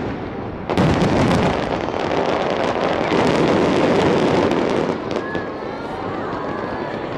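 A digital starmine fireworks barrage: many shells fired and bursting in quick succession, making a dense continuous crackle. A loud new volley comes in just under a second in, and the barrage eases somewhat after about five seconds.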